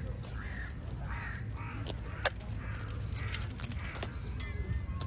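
Crows cawing, a string of short calls, with one sharp click about two seconds in over a steady low background rumble.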